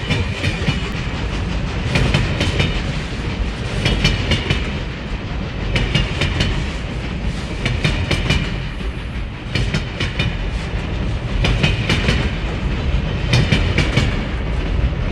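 Railroad cars rolling past over jointed rail, with a continuous low rumble. Clusters of wheel clicks come around every two seconds as each car's trucks cross the rail joints (clickety-clack).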